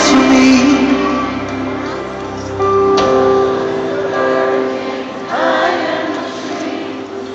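Live worship music with singing, played through a stadium sound system.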